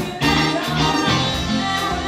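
Live band playing upbeat Caribbean dance music with a horn section and a steady, driving bass line.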